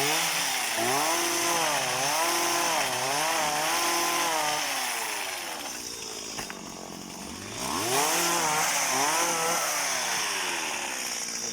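Small petrol engine of a power pruning saw cutting oil palm fronds, its pitch wavering up and down under load. About six seconds in it drops back toward idle for a second or so, then revs up again.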